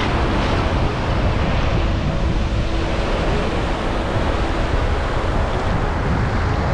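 Surf washing in over the shallows in small breaking waves, with wind buffeting the microphone.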